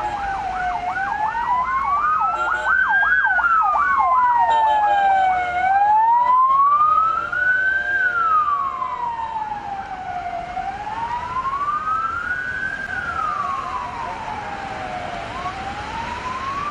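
Emergency vehicle sirens. One slow wail rises and falls, each rise or fall taking two to three seconds. A second siren sounds a fast yelp over it for the first five seconds or so.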